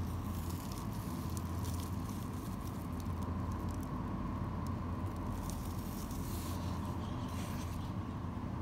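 Short spells of light rustling and crackling as a hand handles a courgette plant's flower buds and leaves, over a steady low hum.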